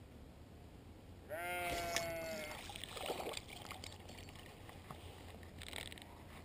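A sheep bleating once, a long call of just over a second starting about a second in. After it come scattered splashes and clicks as a hooked bass is reeled to the bank.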